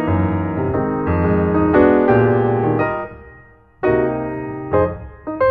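Background piano music: struck chords and melody notes that die away about three seconds in, then a new phrase starts a moment later.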